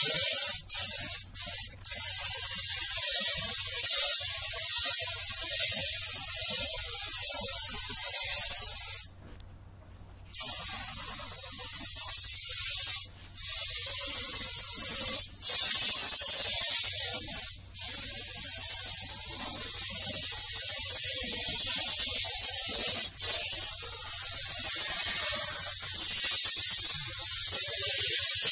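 Compressed-air paint spray gun with a cup underneath, hissing as it sprays paint. The hiss breaks off several times when the trigger is released, with a longer pause of about a second starting about nine seconds in.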